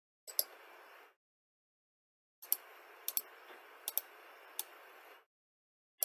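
Computer mouse clicking about five times, short sharp clicks spread over a few seconds, over a faint microphone hiss that cuts in and out.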